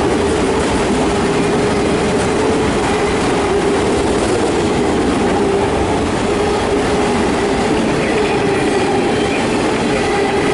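Empty autorack freight cars rolling past on jointed track, a steady loud rumble of wheels with a steady tone held over it.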